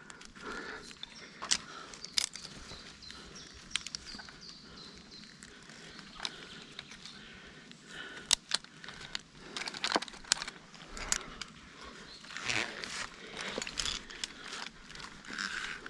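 Metal climbing hardware, rope ascenders and carabiners, clicking and clinking at irregular intervals, with rope and clothing rustling, during a rope ascent.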